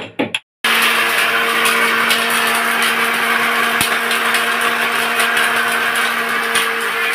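Electric mixer grinder (mixie) running steadily, grinding green cardamom seeds to powder in its stainless-steel jar: a steady motor hum under a dense hiss, starting about half a second in.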